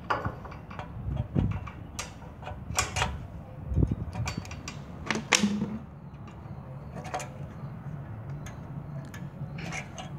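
Irregular small metallic clicks and knocks as a generator carburetor is handled and fitted back onto the engine, with its fuel hose and linkage. The clicks come in quick clusters at first, then thin out to a few scattered ticks.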